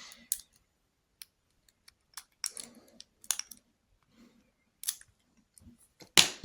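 Small metallic clicks and light scraping of a lockpick and tension wrench working inside a lock's keyway as the pins are picked, a handful of sharp clicks at irregular intervals.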